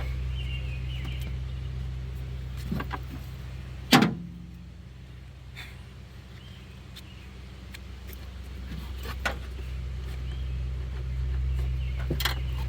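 Sharp clicks and knocks of hands working a plastic air cleaner box and filter cover into place, with one loud snap about four seconds in and a few lighter clicks, over a steady low hum.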